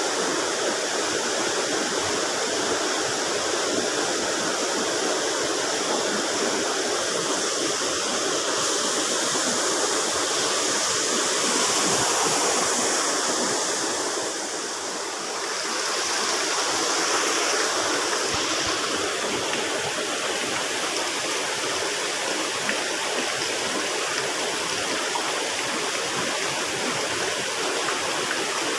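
Small river flowing: a steady rush of running water, easing briefly about halfway through.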